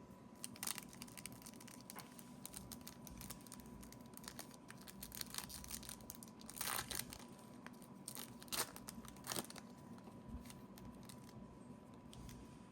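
A trading-card pack wrapper being torn open and crinkled by hand: a run of crisp crackling and rustling, with a few louder rips, one near the start and three between about 7 and 9 seconds in.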